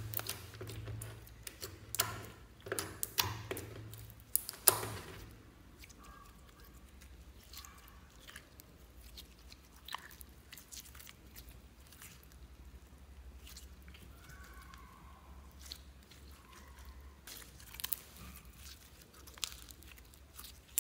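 Hands squeezing and stretching clear slime mixed with fruit slices and beads, giving sticky crackles and pops. A dense run of loud crackles fills the first five seconds, then quieter, scattered pops and squelches follow as the slime is pulled out.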